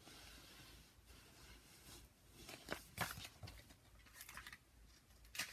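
Faint rustling and soft taps of a picture book's paper pages being handled and turned, with a few short rustles loudest about three seconds in, against a quiet small room.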